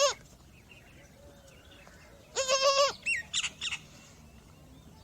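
Newborn goat kid bleating: a high, wavering cry of about half a second, heard once about two and a half seconds in, with the tail of another bleat at the very start. A few quick, high bird chirps follow right after the bleat.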